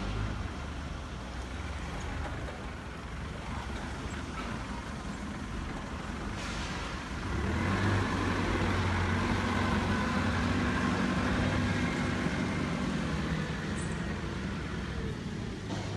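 A heavy vehicle's engine running steadily, with a short hiss of air about six seconds in. The engine gets louder for a few seconds from about seven seconds in.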